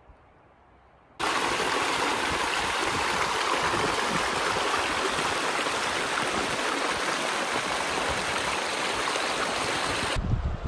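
Clear mountain creek running over a shallow rocky riffle: a steady rush of water that starts abruptly about a second in and cuts off just before the end.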